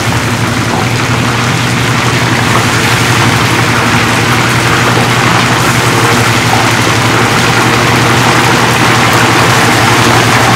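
Battered tempura frying in a commercial deep fryer: hot oil sizzling and crackling hard and steadily, over a steady low hum.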